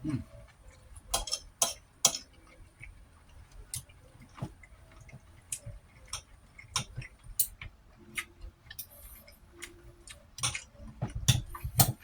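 Close-miked chewing and lip smacking while eating beef rib meat: irregular wet mouth clicks and smacks, coming thicker and louder near the end.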